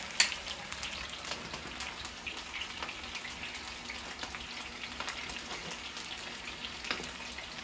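Chuck roast searing in hot oil in a frying pan over a gas burner on high: a steady sizzle full of small crackles and spits, with one sharp click just after the start.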